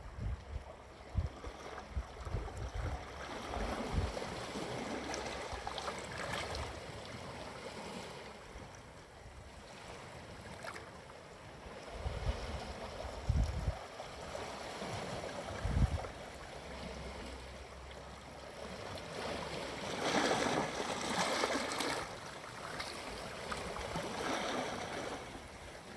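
Gentle sea waves washing onto a sandy shore, coming in slow swells of wash with a few low thumps between them.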